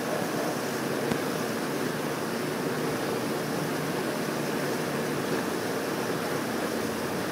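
Steady rushing background noise, even throughout, with no distinct clicks or knocks.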